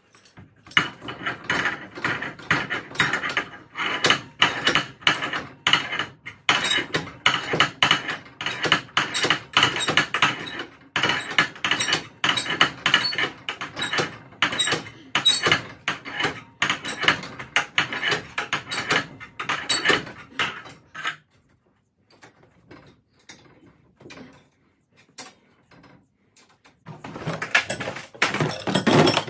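Steel winding bars clinking and knocking against a garage door torsion spring's winding cone as the spring is wound by hand: a long run of quick metallic clicks and clanks. It falls mostly quiet for several seconds before a last burst of clinking near the end.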